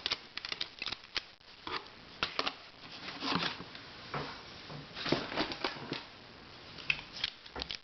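Plastic puzzles being handled, picked up and set down: scattered irregular clicks, taps and short rustles.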